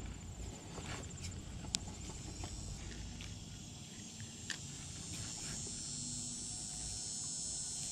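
Insects trilling steadily at a high pitch over a low rumble on the microphone, with a few sharp clicks from a spinning rod and reel being handled. The loudest click comes almost two seconds in.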